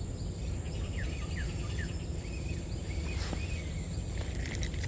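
Outdoor ambience: small birds giving short falling chirps, several in quick succession about a second in and more around three seconds, over a steady high insect drone and a continuous low rumble.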